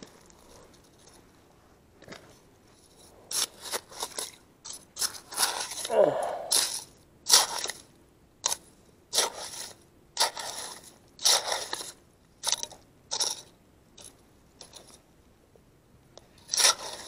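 Small hand rake digging and scraping into gravelly mud: a run of short, sharp crunching scrapes at irregular intervals, about one to two a second, quieter for the first few seconds and again near the end.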